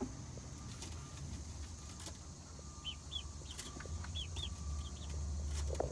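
Chickens in a coop: a run of short, high peeping chirps in the second half, with a few faint clicks over a steady low rumble.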